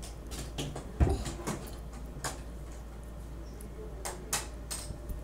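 A small foil toy packet crinkling as it is opened by hand: a string of short crackles, with a soft knock about a second in.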